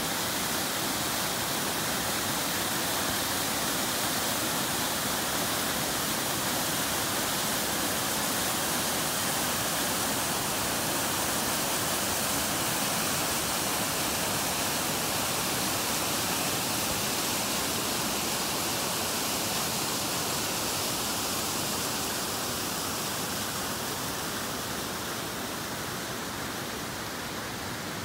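River water rushing steadily, a full even hiss, easing a little in loudness near the end.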